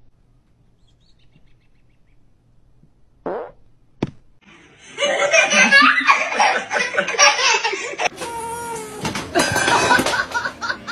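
Near silence for about three seconds, a short sound and a click, then from about five seconds in a baby laughing in loud, repeated bursts.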